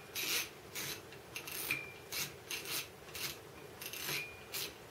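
Front drag knob of a Penn Spinfisher 7500 LC spinning reel being unscrewed by hand, a short rasping click about twice a second as it is twisted round.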